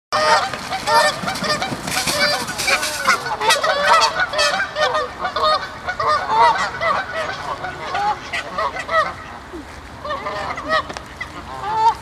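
A flock of Canada geese honking, many short calls overlapping, busiest for the first nine seconds or so and then thinning out.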